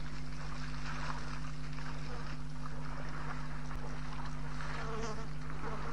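Steady low buzzing hum under an even hiss, unchanging throughout.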